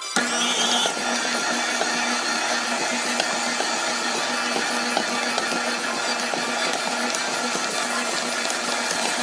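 KitchenAid tilt-head stand mixer running, its motor kneading stiff bread dough in a stainless steel bowl. A steady whir with a low hum underneath.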